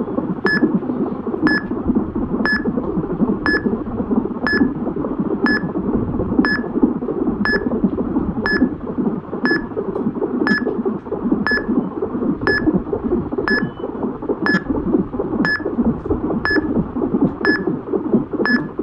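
Fetal heartbeat picked up by a Doppler fetal monitor: a steady, pulsing whoosh, with a short electronic beep about once a second.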